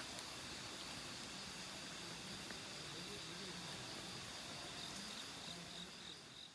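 Insects chirping steadily at two high pitches over an even hiss, fading out near the end.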